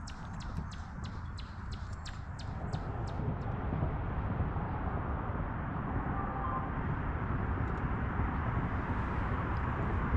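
Steady outdoor lake ambience, a low rumble of wind and water on the microphone, with a run of quick, light ticks, about four a second, over the first three seconds or so.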